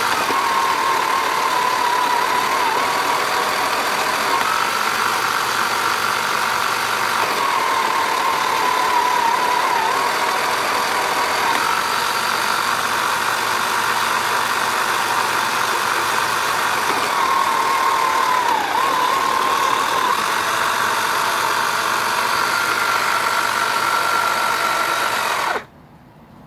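Tomy Hit and Missile toy's small electric motor and plastic gears whirring steadily, with a whine that shifts between two pitches and dips briefly a few times. It stops abruptly near the end as the game is switched off.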